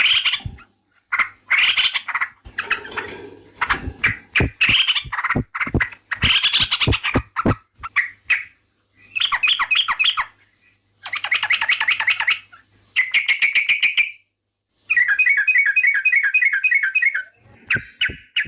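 Sooty-headed bulbul (trucukan) singing: phrases of fast, chattering notes, each a second or two long, with short gaps between them and a longer run of rapidly repeated notes near the end.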